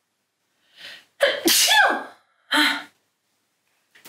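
A person sneezing: a faint in-breath just before a second in, then a loud sneeze with a falling voice, followed by a shorter second vocal burst.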